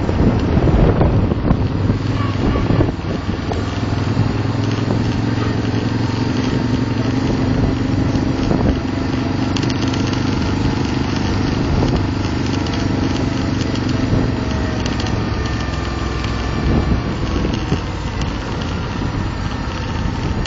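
Motorcycle engine running at a steady cruise, with wind rushing over the microphone, heavier near the start and the end.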